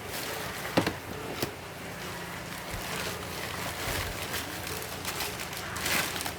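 Packaging rustling and crinkling while it is handled and unwrapped, with a few sharp clicks and knocks: one about a second in and another near the end.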